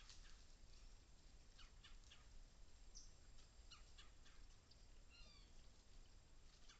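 Faint small-bird calls: scattered short chirps, with a quick run of falling notes about five seconds in, over a steady low background rumble.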